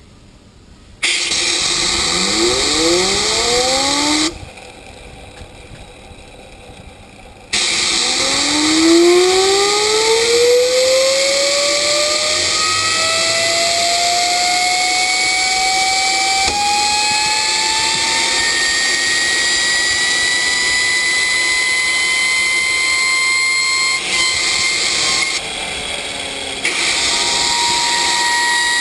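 Compressed air hissing through a hose into a homemade gas turbine, spinning it up. The turbine's whine rises in pitch. The air cuts off after about four seconds and starts again a few seconds later, and the whine then climbs steadily under the hiss, with a brief dip in the air flow near the end.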